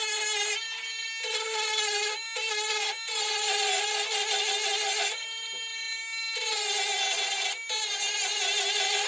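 Handheld rotary tool with a sanding drum running and grinding down the end of a potentiometer's metal shaft: a steady high motor whine that dips a little in pitch several times.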